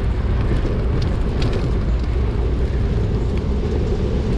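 Wind rushing over the microphone of a bicycle ride at about 22 mph, a steady low rumble.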